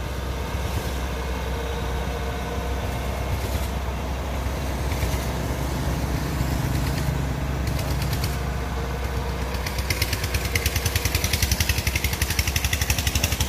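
Diesel engines of farm machinery running steadily at idle. About ten seconds in, a louder engine with a fast, even chugging beat comes in close by.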